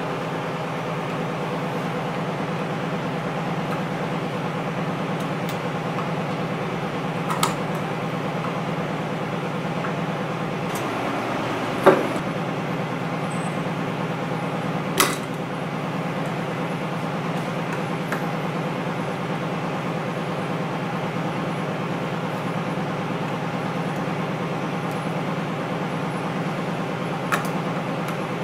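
A steady machine hum with a few sharp metallic clicks over it, the loudest about twelve seconds in: a small Allen wrench knocking against the screws and bar of a Braillo magnet rack as the pivot-arm screws are worked.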